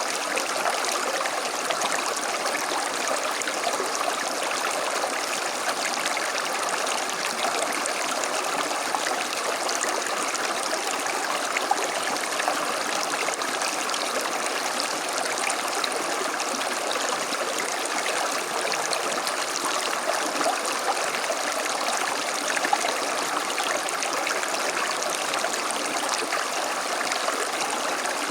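A small creek flowing over stones, a steady rushing and babbling of running water.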